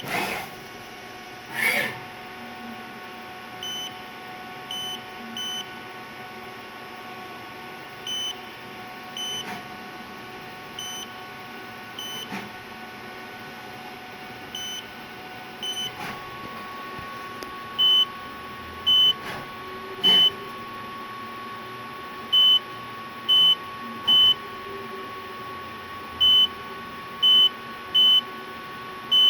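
Short, high electronic beeps repeating at uneven intervals over a steady machine-shop hum, growing much louder in the second half. A steady high whine sets in about halfway through.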